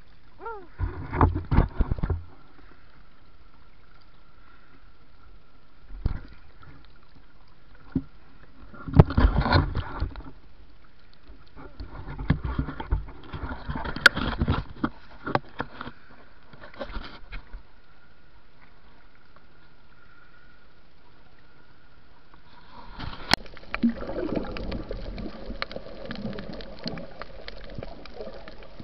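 Irregular bursts of splashing and bubbling water as a snorkelling diver moves and dives at the surface, with a faint steady high hum in the quieter stretches.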